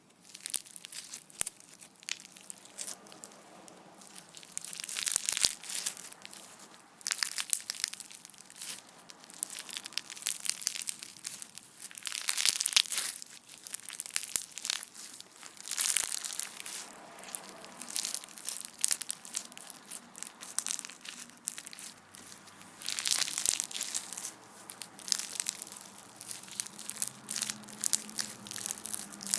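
Crunchy rubber band slime being squeezed and worked by hand: dense runs of crackling crunches that swell and die away in waves every few seconds.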